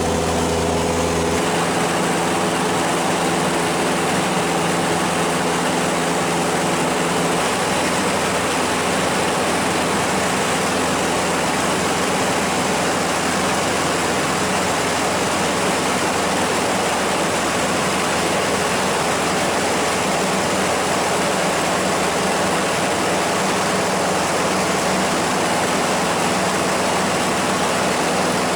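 Light aircraft in flight, heard from inside the cabin: a loud, steady drone of engine and propeller with rushing air. The engine's tone changes about a second in and again around seven seconds in.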